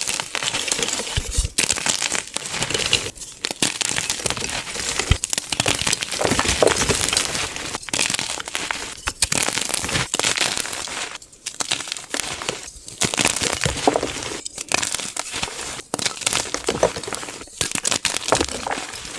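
Blocks of gym chalk being crushed by hand: dense, continuous crunching and crumbling, broken by a few brief pauses.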